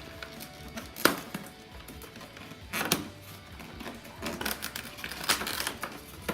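Cardboard packaging being forced open by hand: a sharp knock about a second in, another near three seconds, then a run of scraping and rustling knocks near five seconds. Faint background music throughout.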